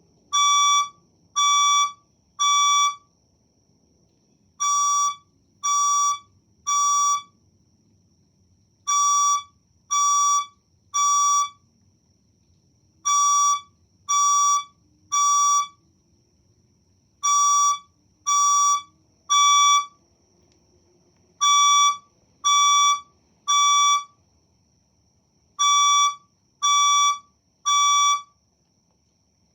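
Fire alarm speaker sounding the temporal-three evacuation tone: a high electronic beep in repeating groups of three, about half a second each, with a pause of about a second and a half between groups. This is the standard signal to evacuate the building.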